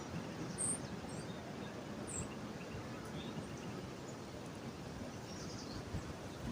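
Outdoor ambience: a steady background hiss with a few brief, high bird chirps, two of them about a second and a half apart near the start.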